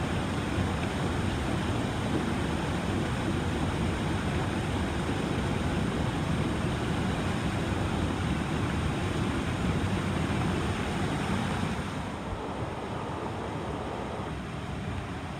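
Rushing water of a shallow mountain trout stream, a steady wash close to the microphone. About 12 s in it becomes quieter and duller.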